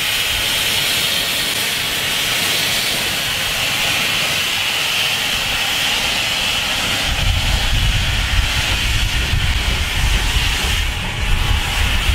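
Narrow-gauge quarry steam locomotive venting steam from its open cylinder drain cocks in a steady, loud hiss as it starts away. A low rumble joins from about seven seconds in.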